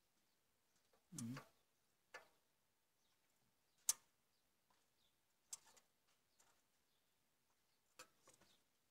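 Near silence with a handful of sparse, sharp metallic clicks and taps, the sharpest about four seconds in: a caliper being set against the injector on a Caterpillar 950F diesel engine's open cylinder head to measure injector height.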